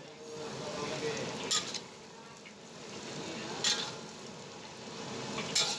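Bean sprouts and long beans sizzling in a wok as a metal spatula stirs them, with three sharp scrapes of the spatula against the wok about two seconds apart.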